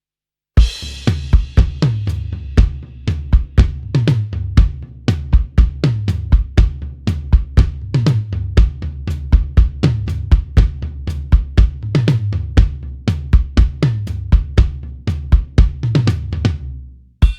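Acoustic drum kit from the EZdrummer 3 'In the Pocket' EZX sample library playing a steady groove of kick, snare and hi-hat, opening with a cymbal crash about half a second in and dying away just before the end.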